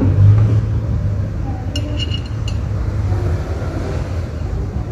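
Light metallic clinks, a few in quick succession about two seconds in, as the flywheel is handled and seated on the engine's crankshaft. A steady low hum runs underneath.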